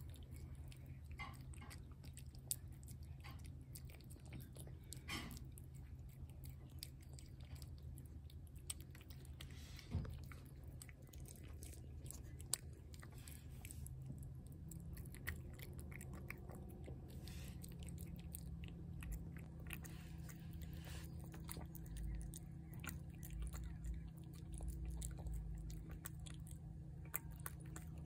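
A cat chewing wet shredded cat food from a plate: a running series of small wet clicks and smacks, over a faint steady low hum.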